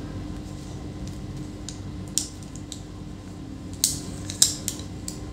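Several small sharp clicks and taps, the first about two seconds in and a cluster of four near the end, as multimeter probes and fingers handle an M.2 SSD circuit board, over a steady low hum.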